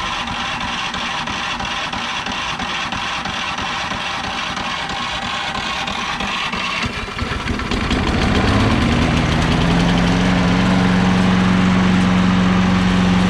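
Electric starter cranking a Craftsman self-propelled lawn mower's single-cylinder engine for about seven seconds, then the engine catches, rises in speed and runs steadily.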